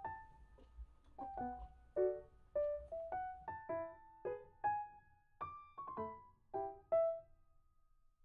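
Soft background piano music: a gentle melody of single struck notes over light chords, ending its phrase on a held note near the end.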